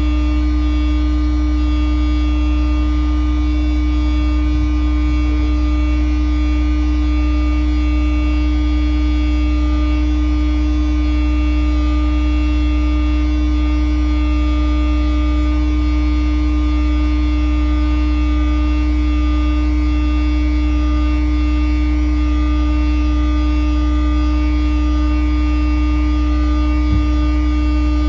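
Sewer pump truck running: a loud, deep, steady hum with a constant higher tone over it, unchanging throughout.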